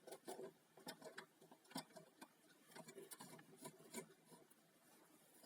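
Faint, irregular clicks and taps of hands working the presser foot of a Janome 525S sewing machine; the machine is not running.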